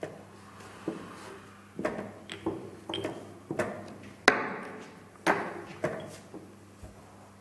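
Wooden chess pieces knocked down on the board and the buttons of a digital chess clock slapped in quick alternation: about a dozen sharp knocks and clicks in a few seconds, the loudest about four seconds in. It is the sound of a blitz time scramble, with one player down to a few seconds on his clock.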